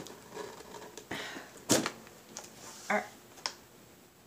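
Hands opening a small box and handling what is inside: a few sharp clicks and taps with light rustling, the loudest click a little before halfway.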